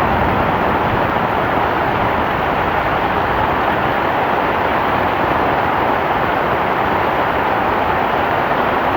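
Heavy rain falling in a steady, dense hiss with no letup.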